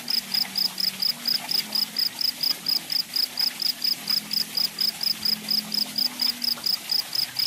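An insect chirping in a steady high-pitched rhythm of about four to five pulses a second, with a faint low hum underneath.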